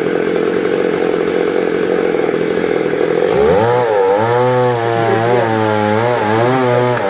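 Two-stroke chainsaw cutting through a tree. It runs as a steady buzz for about three seconds, then its engine note turns clearer and its pitch wavers up and down as the load changes.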